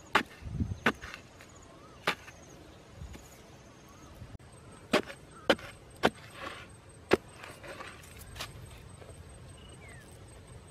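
Bamboo digging pole jabbed into hard, dry soil: about eight sharp knocks at uneven intervals, with some scraping of loose earth between them.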